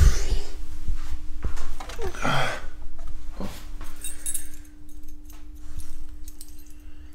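Keys jingling and clothing and handling rustle as a person climbs into a van's driver's seat, with a faint steady hum underneath.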